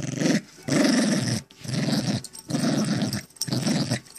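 Small dog growling in play while tugging on a fleece rope toy: a string of about five growls, each under a second long, with short gaps between.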